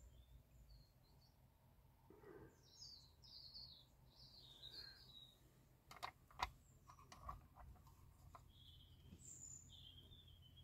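Near silence: faint bird chirps in the background, in two spells, and a few light clicks about halfway through as a brush and tweezers handle the model.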